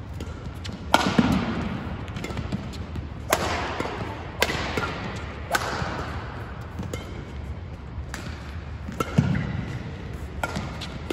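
Badminton rackets striking a shuttlecock in a fast rally, a sharp crack about every one to two seconds, each echoing through the hall. Dull thuds of the players' footwork sound between the hits.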